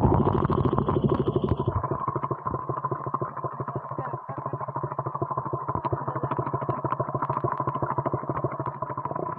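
KTM RC 200's single-cylinder four-stroke engine running with its exhaust outlet under water, the exhaust pulses bubbling and splashing through the water in a steady rhythm. It is louder for the first second or two, then holds steady.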